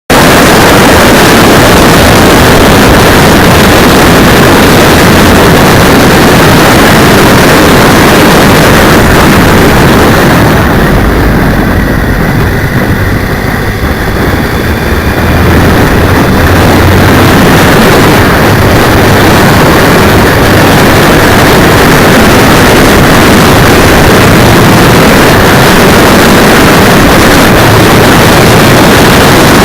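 Wind rush and motorcycle noise on a ride, picked up by a cheap 808 keychain camera's microphone strapped to the handlebar brake cylinder. It is recorded so loud that it is a harsh, distorted roar. It eases for a few seconds around the middle, then comes back at full strength.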